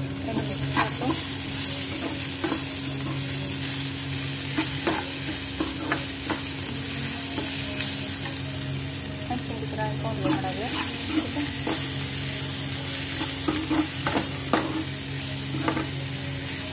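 Chopped onions and tomatoes sizzling in oil in a pan as a steel spoon stirs them, with the spoon clicking and scraping against the pan at irregular moments. A steady low hum runs underneath.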